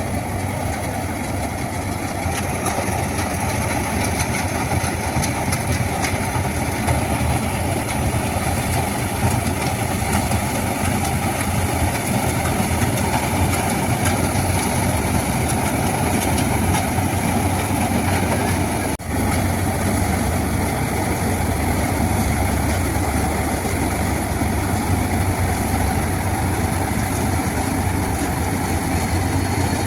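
Combine harvester's diesel engine running steadily, with a brief dropout about two-thirds of the way in.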